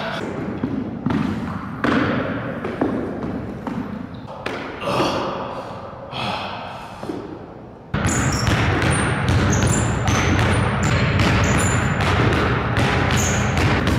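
Scattered thumps on a hardwood floor, then about halfway a basketball being dribbled hard and fast on the hardwood, with short high squeaks, as music comes in suddenly and loudly.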